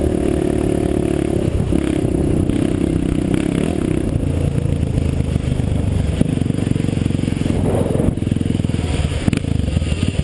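An off-road vehicle's engine running steadily on a dirt trail. The engine note changes about four seconds in, and there is some clatter from the vehicle.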